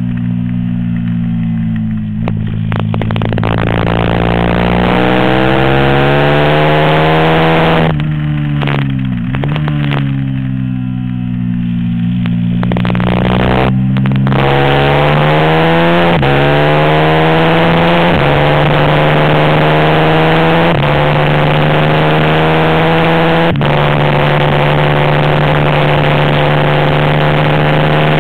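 450cc racing motorcycle engine at speed, its note climbing and falling with the throttle. There is a sharp dip and recovery about eight to nine seconds in, and several abrupt steps in pitch in the second half, as at gear changes.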